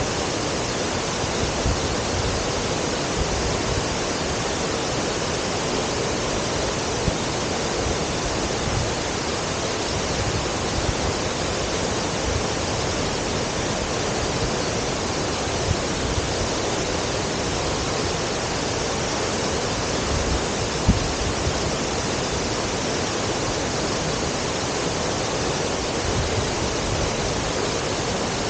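Steady rush of water from Tangyo Waterfall, a tall waterfall with an estimated 106 m drop, falling without let-up.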